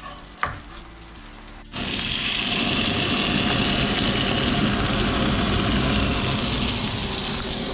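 Halved slipper lobster frying in butter in a pan: after a single light knock, a loud sizzle starts suddenly about two seconds in and keeps on steadily.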